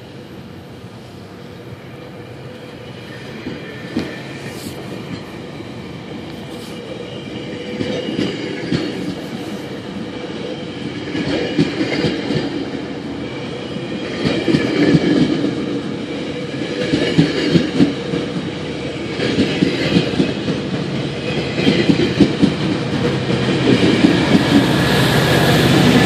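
GO Transit bilevel passenger coaches, pushed by an F59PH diesel locomotive, rolling past at speed. The wheels clack over rail joints in clusters every two to three seconds, and the rumble grows steadily louder toward the end as the rear of the train nears.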